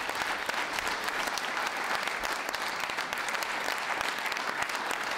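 Audience applauding steadily, a dense patter of many hands clapping, welcoming a judge just introduced.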